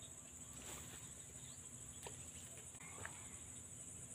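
Faint, steady, high-pitched chorus of insects, typical of crickets, shrilling without a break.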